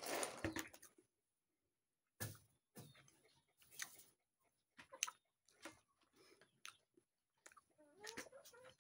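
Faint, intermittent chewing of boiled jackfruit seeds, with a few soft mouth sounds spaced about a second apart and a busier patch of small sounds near the end.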